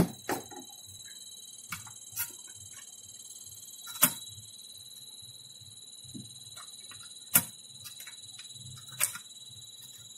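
Scattered clicks and knocks of a monitor's sheet-metal main-board shield being handled and set against the LCD panel, the loudest about 4 s and 7.5 s in, with a faint steady high whine underneath.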